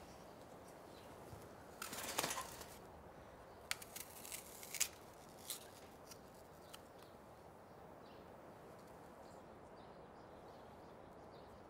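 A caged canary fluttering its wings in a wire birdcage: a brief flurry about two seconds in, then a few small clicks and rustles over the next few seconds, fading to faint room tone.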